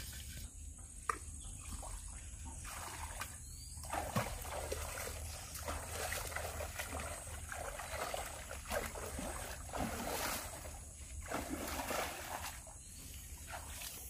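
Shallow river water splashing and sloshing around a person wading and moving a metal pot, with a few short knocks.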